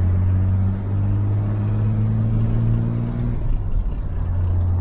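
Chevrolet Opala's engine heard from inside the cabin while driving: a low steady drone whose pitch rises slowly as the car gathers speed. About three seconds in it drops off briefly, then settles back at a slightly lower pitch.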